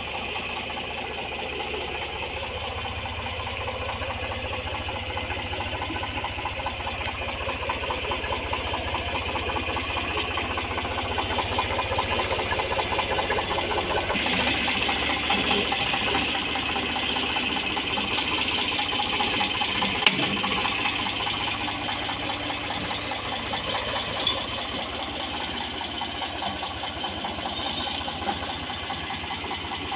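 Eicher tractor's diesel engine running steadily while pulling a plough through the soil. A single sharp knock comes about twenty seconds in, and a smaller one a few seconds later.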